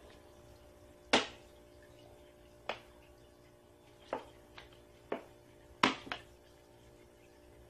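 Water drips falling from the cap of an upturned plastic bottle, a homemade drip waterer for calliandra cuttings, into the pot below: about seven sharp drips at uneven intervals, roughly one a second.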